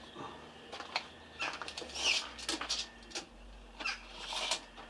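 Thin wooden laths being handled on a workbench: scattered light knocks and clicks of wood on wood, with a few short scraping or sliding sounds.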